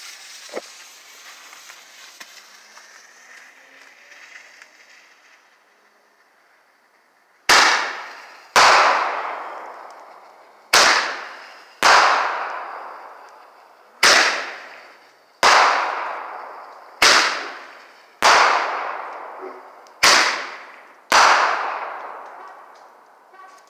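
A Phantom Fireworks American Military Roman candle's fuse hisses for about six seconds. Then the candle fires five times, each time as two sharp bangs about a second apart, every bang trailing off in a long echo.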